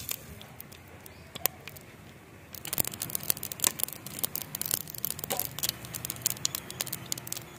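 Mustard seeds and urad dal sizzling in hot oil at the start of a tempering. The seeds begin to crackle about two and a half seconds in, with many quick sharp pops as they splutter.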